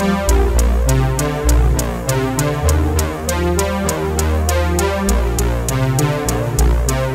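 Electronic background music with a steady beat and a deep bass line.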